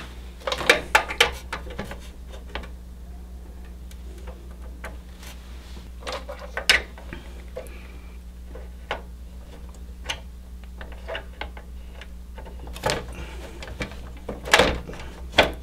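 Scattered sharp clicks and knocks of computer water-cooling hardware being handled, with a quick run of clicks about a second in and more near the end, over a steady low hum.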